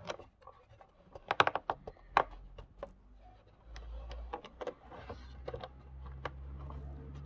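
Scattered light clicks and creaks from a gutted plastic game steering wheel being turned by hand, its bicycle steering cables winding on the drum inside. A low steady rumble comes in about halfway through.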